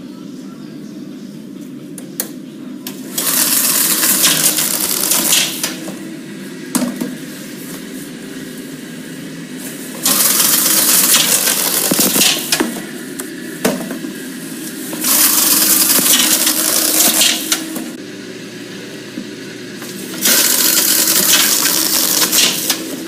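Little David LD-19SB case sealer running, its belt drive humming steadily. Four times, each for about two and a half seconds, a loud rasping rush breaks out as a case is drawn through and taped, with a few sharp clicks in between.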